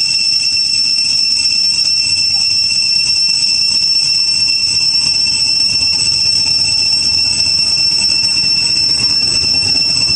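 Cicada chorus: a steady high-pitched drone that holds one pitch without a break.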